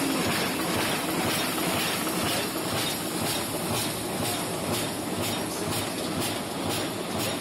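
Automatic paper cup forming machine running, its indexing turret and presses making a steady mechanical clatter with a fast, even rhythm of clicks.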